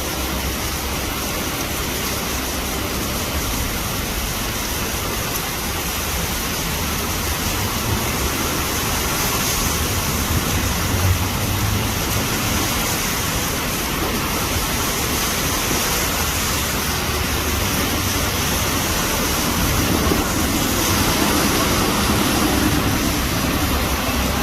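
Torrential rain pouring down: a steady, dense hiss, with a low rumble underneath that swells a little in the middle and again near the end.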